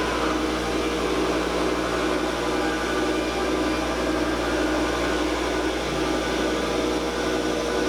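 Forest Scientific WL-4000 CNC wood lathe running while it turns a wooden bat: a steady mechanical whir with an even hiss.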